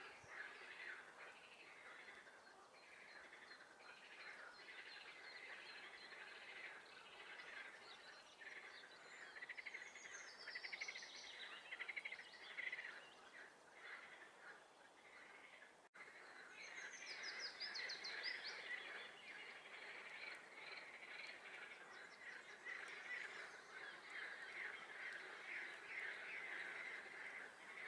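Dense spring chorus of swamp frogs: many rapid pulsed croaks overlapping without pause. A few higher trilled songbird phrases break through twice. The chorus drops out for an instant just past the middle.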